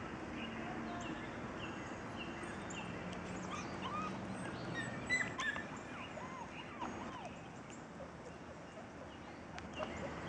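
Seven-week-old Siberian Husky puppy whining in short rising-and-falling whimpers, clustered around the middle, with birds chirping in the background.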